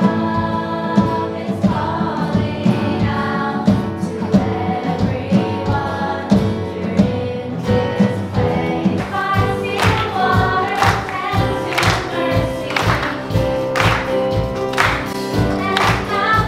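A worship band sings a Christian song, several young women's voices together over acoustic guitar. A steady drum beat comes in about halfway through.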